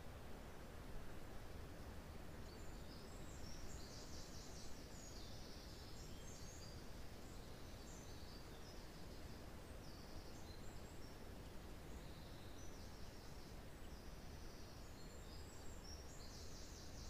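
Faint, steady wind rushing through pine trees, with small forest birds calling in quick high chirps that come in clusters every few seconds.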